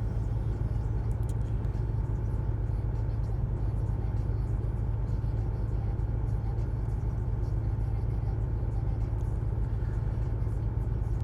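Range Rover P38's V8 idling steadily while still cold and warming up on petrol, with a low, even rumble.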